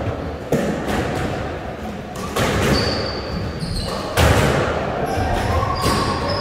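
Squash rally: the rubber ball struck by racquets and smacking off the court walls in several sharp, echoing knocks, the loudest about four seconds in, with short squeaks of court shoes on the wooden floor between them.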